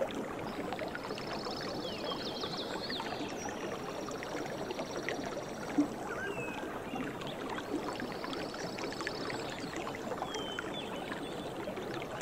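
Mountain river running over rocks, a steady rush of water, with small birds singing above it in short chirps and rapid trills. A single brief knock comes about six seconds in.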